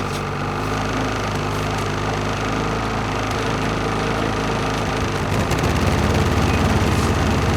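An engine running steadily, getting louder and rougher over the last two seconds or so.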